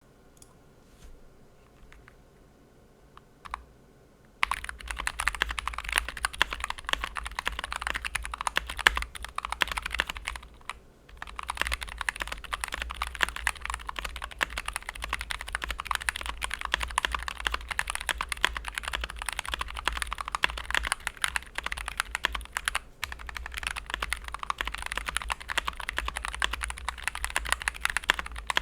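Akko ACR67 custom mechanical keyboard with lubed JWK Lagoon tactile switches being typed on: a few single keystrokes, then fast continuous typing from about four seconds in, broken by one short pause near the middle.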